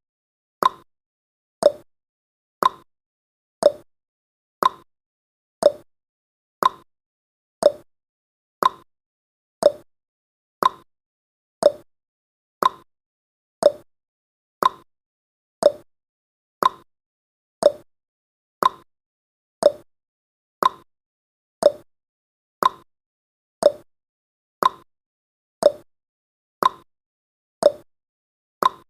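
Countdown timer's clock-ticking sound effect: short, sharp ticks, about one a second, marking each second counted down.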